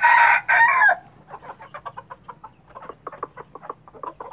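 An ayam brugo rooster, a red junglefowl × domestic chicken cross, ends a loud crow in the first second. A run of short, rapid clucks follows.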